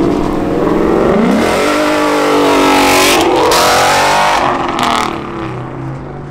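A Ford Mustang accelerating hard away. The engine revs up, shifts up about three seconds in, revs again, and fades as the car pulls into the distance.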